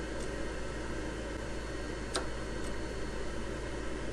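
Noritz NRC111 tankless water heater's fan motor running steadily while the gas valve clicks as it cycles on and off about every two seconds: one sharp click about two seconds in, with fainter clicks near the start and just after it. This cycling is the sign that the neutralizer life-counter reset procedure is complete.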